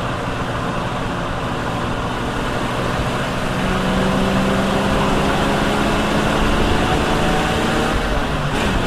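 Ford Mustang engine running steadily, growing a little louder about three seconds in, its pitch sagging slightly afterwards.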